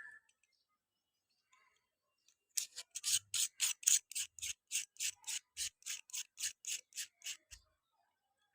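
A quick run of about twenty small, sharp plastic clicks, roughly four a second, from handling the Boya BY-M1 Pro lavalier microphone's inline controller.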